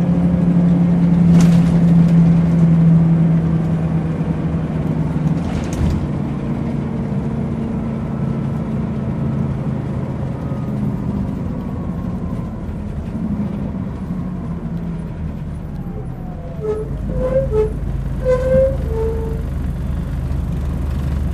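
Volvo Citybus double-decker running, its engine and drivetrain droning through the upper-deck cabin, loudest in the first few seconds and then easing. Two sharp knocks or rattles come in the first six seconds, and a few short pitched tones sound near the end.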